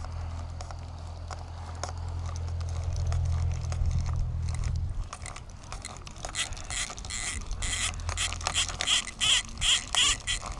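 A low steady hum that fades out about halfway through, then rapid rhythmic scraping clicks, about three a second, that grow louder toward the end.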